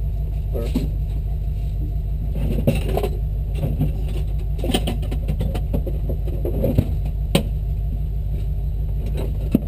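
Jeep engine running at a steady idle, a constant low drone, with scattered sharp knocks and rattles over it.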